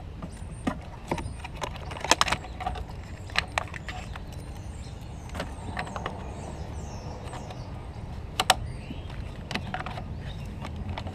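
Scattered sharp plastic clicks and taps as the car's ECU wiring-harness connector and its plastic bracket are handled and fitted back into place, the loudest a double click about eight and a half seconds in. A steady low hum runs underneath.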